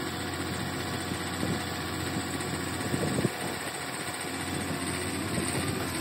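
Tractor engine running steadily while the Brent Avalanche grain cart's unloading auger is raised hydraulically from its folded position, with a single knock about three seconds in.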